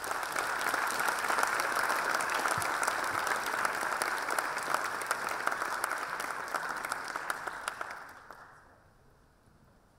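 Audience applauding: dense clapping that builds quickly at the start, holds steady, then dies away about eight seconds in.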